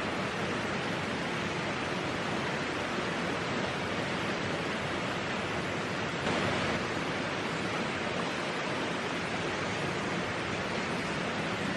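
A steady, even rushing noise, with a brief swell about six seconds in.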